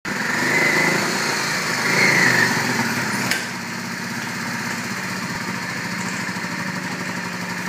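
Small engine running, faster and louder for the first couple of seconds, then settling to a steadier, lower run after a sharp click about three seconds in.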